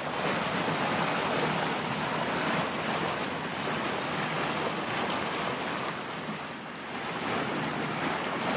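Water rushing and splashing along the hull of a sailing yacht under way, a steady wash with wind buffeting the microphone.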